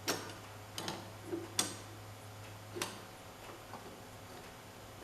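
Hand work on the garden tractor's transmission: a few sharp, irregularly spaced metal clicks and knocks, about four in the first three seconds, then a quieter stretch. A steady low hum runs underneath.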